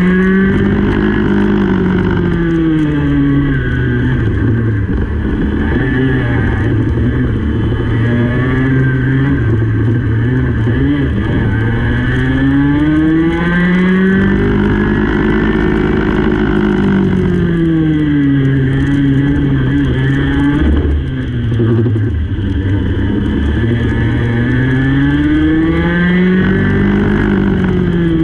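Racing go-kart engine heard onboard, its pitch climbing as it accelerates along the straights and falling away as it backs off into the corners, twice over.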